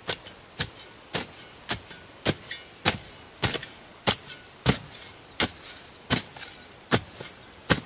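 Long-handled spade chopping down into the dirt at the edge of a dug hole to trim it wider: a steady run of about a dozen sharp chops, roughly three every two seconds.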